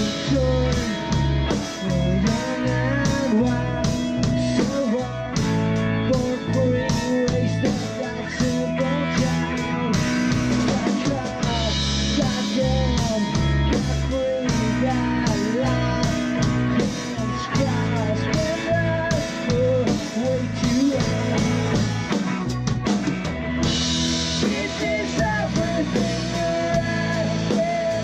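Rock song played by a band, with drum kit, bass and guitar keeping a steady beat and a lead melody that bends and slides in pitch over them.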